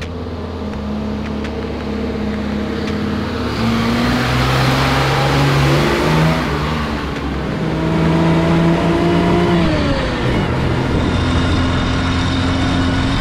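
Mercedes Unimog truck engine pulling away and accelerating. Its pitch steps up and down as it goes through the gears, with a clear drop in revs about ten seconds in.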